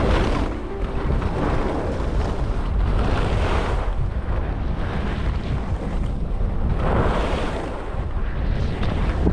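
Wind buffeting a GoPro's microphone as a skier descends, a constant low rumble, with swishes of skis turning on snow every second or two.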